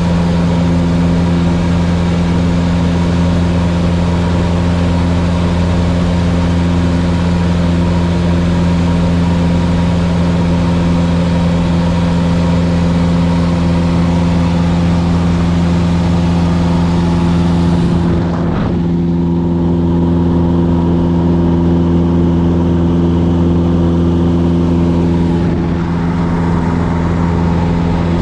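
Single-engine light airplane's piston engine and propeller droning steadily at cruise power, heard inside the cabin. The airy hiss over the drone drops away abruptly about eighteen seconds in.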